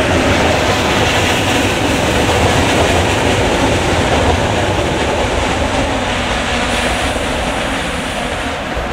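Regional passenger train of double-deck coaches passing close by and pulling away: a steady rumble and rattle of wheels on the rails that eases off gradually over the last few seconds.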